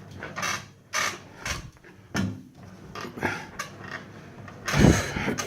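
Exercise bike being pedalled: irregular rubbing and creaking from the machine, mixed with hard breathing from a winded rider. The loudest burst comes near the end.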